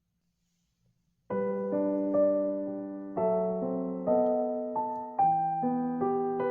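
Near silence, then a little over a second in, background piano music begins: chords struck one after another, each fading before the next.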